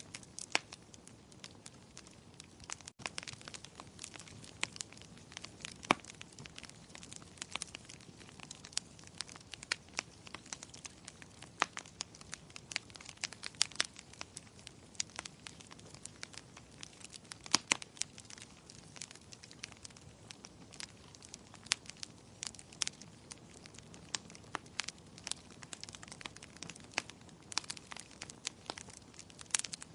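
Wood fire crackling in a fireplace: irregular sharp pops and snaps, several a second, over a soft low hiss.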